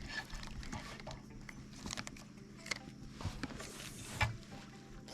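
Faint scattered clicks and rustles, like gear being handled, over a low steady hum.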